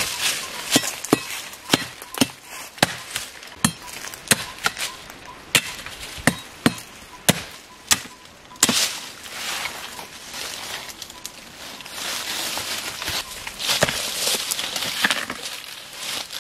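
A blade chopping into woody forest stems: about a dozen sharp strikes, one or two a second, for the first half, then the rustle and crackle of cut stems and leaves being pulled and dragged through undergrowth, with a few more strikes near the end.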